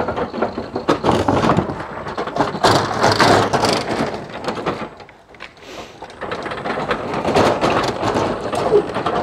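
Electric pallet truck with empty forks rolled across brick paving, its wheels and forks rattling and clattering, easing off briefly about halfway through before starting again.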